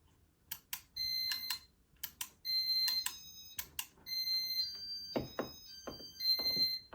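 Buttons on a Casablanca W-11 IntelliTouch fan wall control being pressed to put it into demo mode: a series of clicks, each answered by short electronic beeps at a few different pitches, with a couple of duller knocks near the end.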